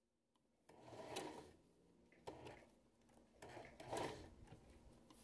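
Faint handling at a sewing machine: fabric and a zipper shifted under the presser foot, in three short bursts of rustling with small clicks.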